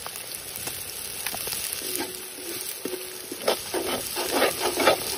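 Sliced onions and bay leaves sizzling in hot oil in a kadai. From about three and a half seconds in, a spatula scrapes and stirs them in repeated strokes, about two a second.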